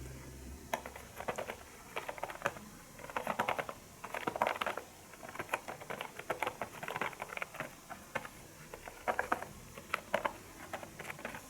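Typing in quick, irregular bursts of key taps on a Privileg AirTouch foldable, flexible full-sized keyboard.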